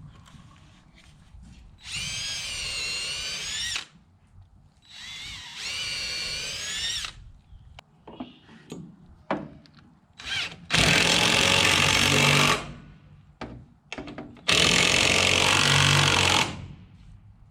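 Power drill running in four bursts of about two seconds each while fastening pipe supports onto a post. The first two are a whine that rises and falls in pitch; the last two are louder and rougher. Light clicks and knocks sound between the bursts.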